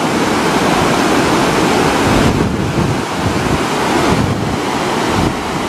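Fast muddy floodwater in a swollen wadi rushing and churning in a steady loud roar, with wind buffeting the microphone.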